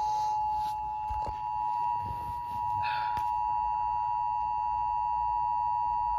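Emergency Alert System attention signal, two steady tones sounding together without a break, heard from a TV. It announces an incoming emergency alert, here a flash flood warning.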